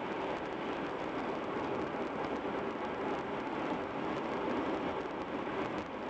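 Steady rushing road noise from a car travelling at expressway speed: tyres on the pavement and wind.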